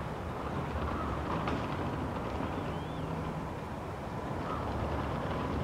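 Steady low rumble of distant road traffic, with a faint short bird note about halfway through.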